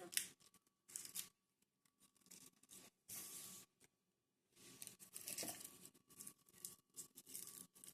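Short bouts of dry crinkling and rustling as garlic and its papery skins or packaging are handled, with brief near-silent gaps between them.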